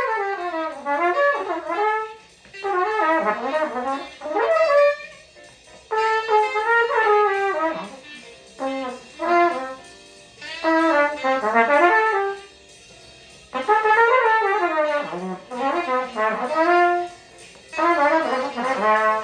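Trumpet playing a string of fast melodic phrases, each about one to two seconds long and mostly running downward, with short breaths between them.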